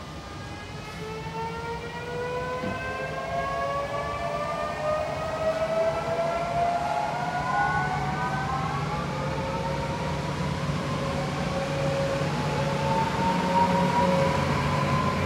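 Electric multiple unit EN78A accelerating away from the stop, its traction inverters and motors whining in several rising tones over a low rumble, a second set of rising tones joining about halfway through as it gathers speed.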